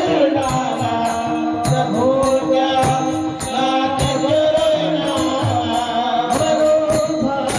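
Marathi Varkari bhajan music between sung lines: held melodic notes over a steady drone, kept in rhythm by mridang drumming and regular strikes of small hand cymbals.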